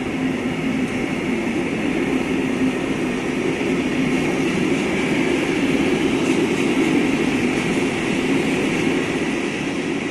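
Freight train of rail tank wagons rolling past close by. A steady rumble and hiss of steel wheels on the rails.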